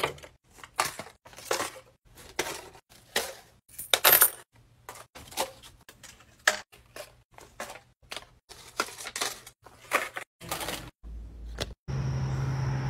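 Paper money and coins dropped one after another into a wooden box, each landing with a short sudden sound, about two a second. Near the end a steady hum takes over.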